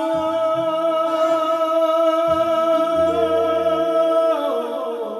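Electronic keyboard with an organ sound holding a sustained chord over changing bass notes, moving to a new chord about four seconds in.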